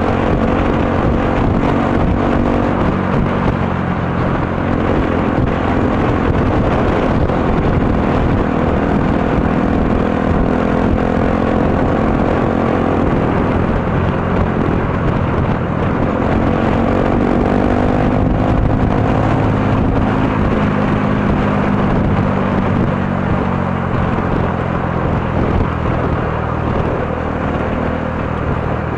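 Motorcycle engine running while riding, its note rising and falling several times with throttle and gear changes, under a steady rush of wind and road noise on the bike-mounted microphone.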